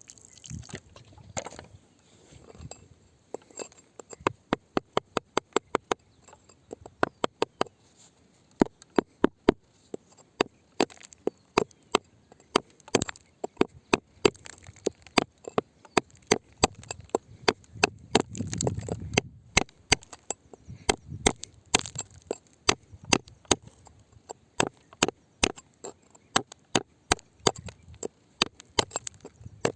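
A hand tool striking rock over and over: sharp knocks at about two to three a second, with short pauses between runs of blows.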